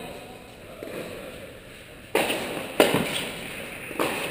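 Tennis ball struck by rackets and bouncing on the court during a rally, in a large indoor tennis hall: three sharp pops a little past halfway, again just after and near the end, the middle one the loudest, each ringing on in the hall's echo.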